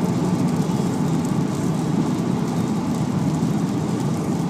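Steady driving noise of a Volkswagen Golf GTI on a wet track, heard from inside the car: engine and tyres running through water, with a rain-like hiss.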